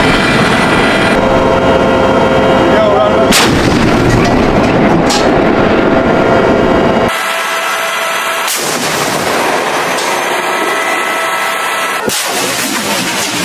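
M1A2 SEP V2 Abrams tank guns firing on a range: several sharp, heavy reports with rumbling noise between them, the sound changing abruptly a few times.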